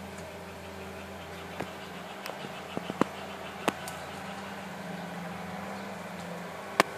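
A wooden front door being unlocked and opened: a run of sharp clicks and knocks from its lock and handle, the loudest a single click near the end, over a steady low hum.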